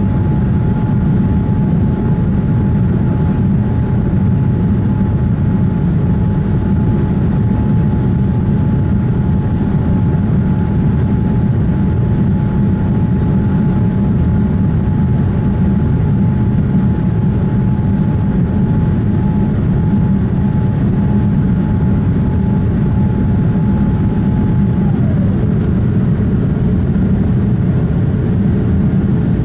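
Steady cabin rumble of a Boeing 787-9 in flight, heard from a window seat: Rolls-Royce Trent 1000 engine noise and airflow over the fuselage. A faint steady tone in it glides down in pitch near the end and settles lower.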